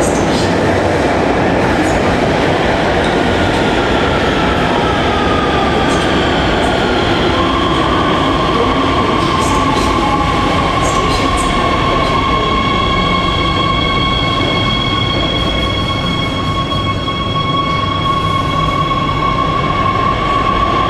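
Hohhot Metro Line 2 subway train running into an underground station. A steady rumble carries a whine that falls in pitch as the train slows, then from about a third of the way in a steady high-pitched squeal holds as it brakes to a stop.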